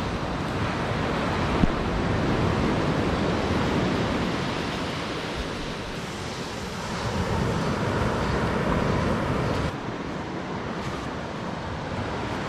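Surf washing onto a beach, swelling and easing twice, with wind buffeting the microphone. A single brief knock comes about one and a half seconds in.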